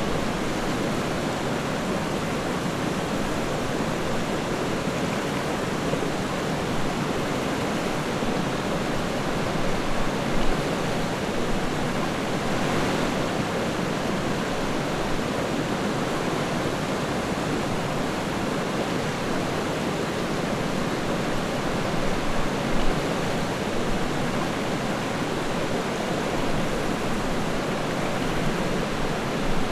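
River water flowing in a steady, even rush, with two brief slightly louder splashes.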